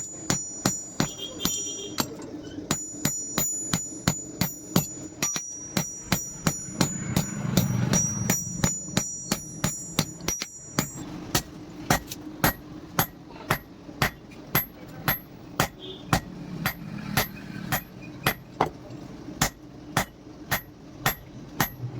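Hand-hammer blows on steel at the anvil, forging a truck leaf spring into a spear head: a steady run of about two ringing metallic strikes a second, with the anvil ringing brightly through the first half.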